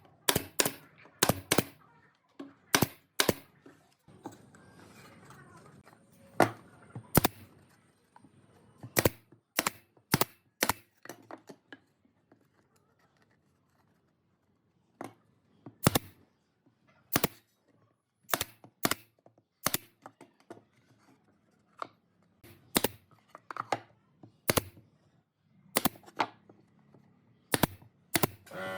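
A series of sharp knocks at irregular intervals, often one to two a second, with a lull of a few seconds about halfway through.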